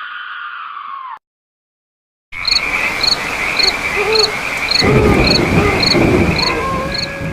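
Night-ambience sound effect: crickets chirping about twice a second over a hiss of rain, with frogs croaking and a low thunder-like rumble from about halfway. Before it, a held tone droops in pitch and cuts off about a second in, followed by a second of silence.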